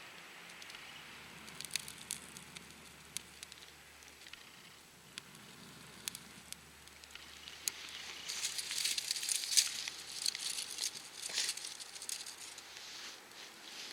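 Scattered sharp crackles that thicken into a dense run of crackling about eight seconds in, then thin out again, typical of a small fire of kindling catching.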